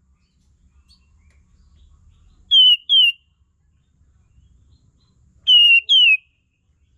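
Olive-winged bulbul (kapas tembak) lure call: two pairs of short, clear notes, each sliding down in pitch. The first pair comes about two and a half seconds in and the second about five and a half seconds in.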